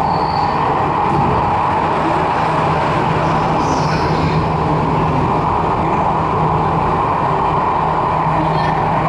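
Jakarta MRT electric train running, a steady rumble with a constant low hum.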